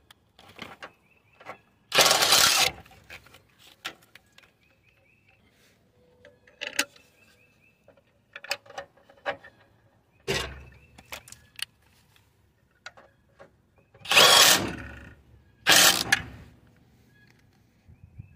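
Cordless power tool running in short bursts on the 13 mm bolt of the horn mounting bracket: once about 2 s in, once around 10 s, and twice close together near the end. Clinks and clicks of the bracket, bolt and horns being handled fall between the bursts.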